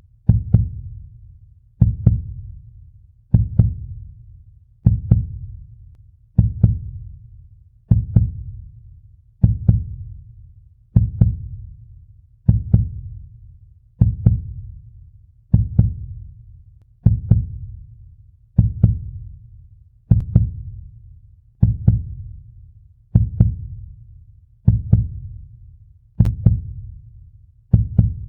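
Heartbeat sound effect: a slow, steady heartbeat, each beat a low double thump (lub-dub), repeating about every one and a half seconds.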